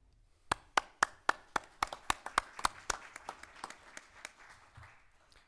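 Brief applause from a small audience, with one pair of hands clapping close by at about four claps a second. It starts about half a second in and dies away over about four seconds.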